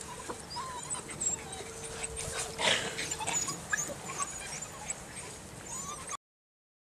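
Six-week-old Belgian Malinois puppies giving many short, high squeaks and cries, with one louder burst about two and a half seconds in. The sound cuts off suddenly near the end.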